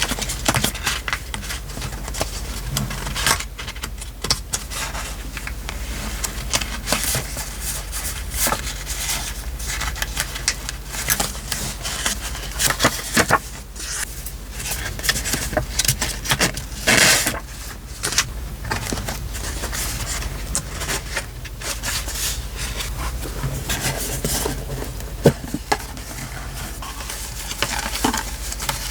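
Paper and journaling materials being handled on a desk during diary decorating: irregular rustling, crackling and small clicks and taps, over a steady low hum.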